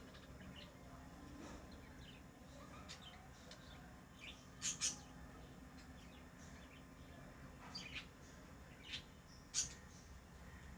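Pet lovebirds chirping: scattered short, sharp chirps, the loudest a quick pair about halfway through, with a few more single chirps near the end.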